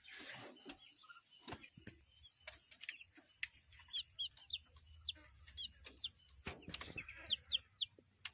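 Muscovy ducklings peeping: a string of short, high-pitched peeps, each falling in pitch, coming thicker in the second half, with a few soft knocks.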